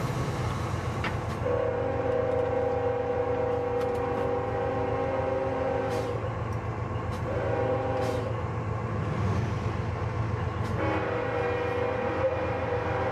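Locomotive air horn, a chord of several steady tones, heard from inside the cab: one long blast of about four seconds, a short one, then another long blast starting near the end. Under it the steady rumble of the locomotive running on the rails.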